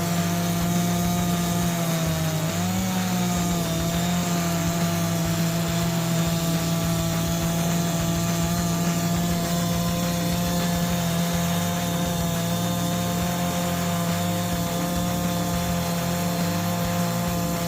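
Sawmill circular saw running steadily with a constant hum and whine, which dips briefly in pitch about two and a half seconds in.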